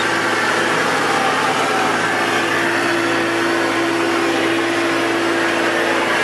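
Engine of a John Deere machine running steadily, heard from inside its cab, with a steady humming tone over a constant engine noise.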